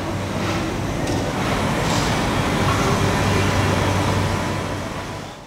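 Steady mechanical rumble with a low hum, rising slightly and then fading away near the end.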